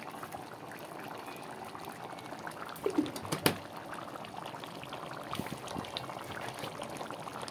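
Chicken curry gravy boiling in an aluminium kadai: steady bubbling and popping, with one sharp click a little over three seconds in.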